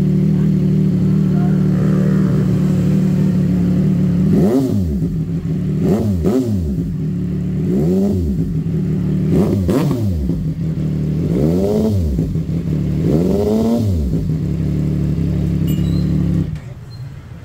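CFMOTO 675 SR-R's three-cylinder engine idling through its exhaust, then blipped about six times, each rev rising and falling quickly back to idle, during an exhaust sound check. The engine sound stops abruptly near the end.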